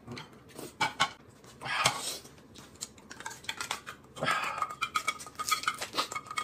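Eating sounds at a table: short clicks and slurps of noodles being eaten. About four seconds in, chopsticks start scraping chilli sauce out of a small jar, and a faint steady tone joins at the same point.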